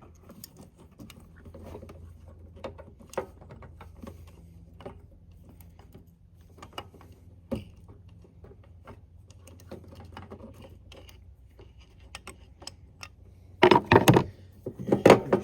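Hands working with tools and metal parts on an ATV: scattered small clicks and taps, with two loud bursts of clattering near the end, over a faint low hum in the first half. The work is on a seized choke cable.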